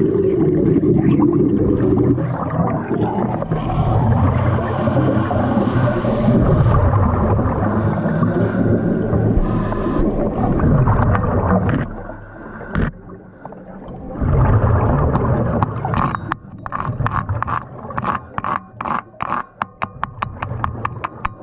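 Underwater wet welding: the arc crackles and fizzes amid bubbling water, loud for about the first twelve seconds before it breaks off. It returns briefly, then gives way to a run of sharp regular clicks, quickening to about three a second.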